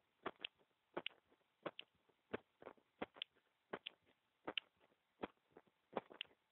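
Human heartbeat picked up by a small microphone resting on bare skin: regular paired lub-dub beats, about 85 a minute.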